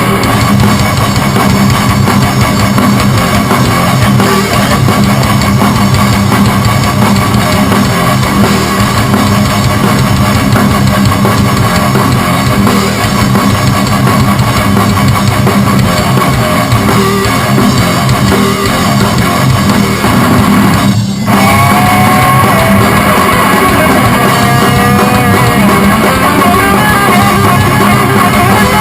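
Heavy rock music with distorted electric guitars and a drum kit, loud and dense, from the band's session recording. About two-thirds of the way through it drops out for a moment, and after that a lead guitar plays bending notes over the band.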